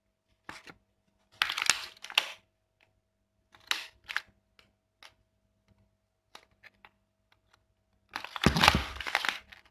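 Small plastic baking-soda container from a science kit being handled and worked at to open it: several short bursts of crinkling and crackling plastic with faint clicks between, the loudest burst near the end with a low thud in it.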